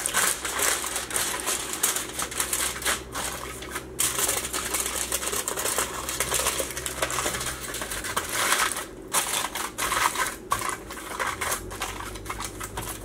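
Reynolds Wrap aluminum foil crinkling and crackling as it is pressed and folded around the top of a plastic shaker cup, with a couple of brief pauses.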